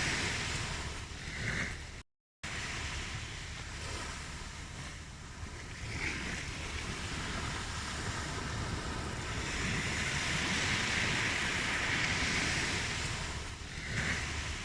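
Ocean surf: waves washing in and drawing back in slow swells, one long swell building and fading in the second half. About two seconds in, the sound cuts out completely for a split second.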